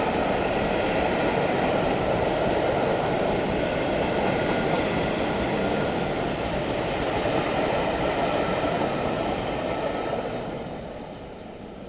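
Steam-hauled charter train behind A1 Pacific 60163 Tornado rolling past on the rails, a steady rumble of wheels and rail noise with a faint steady whine above it. It fades away about ten seconds in as the train draws off.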